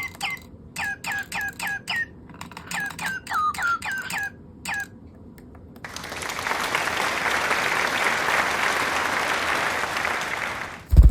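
Toy singing bird chirping: quick runs of identical short chirps, each dropping in pitch, for about five seconds. Then a steady rushing, rustling noise lasts about five seconds and ends in a short thump.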